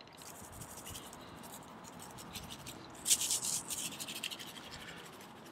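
Shaker bottle of coarse salt, pepper and garlic rub being shaken over a rack of beef short ribs: a run of quick, dry, hissing rattles about three seconds in.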